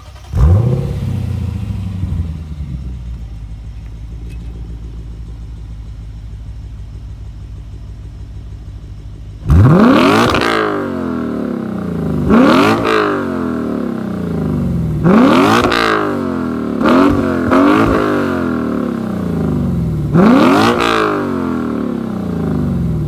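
Lexus RC F's 5.0-litre V8 flares up about half a second in and settles to a steady idle. From about the middle on, it is revved in about six quick stabs, each rising sharply and falling back to idle.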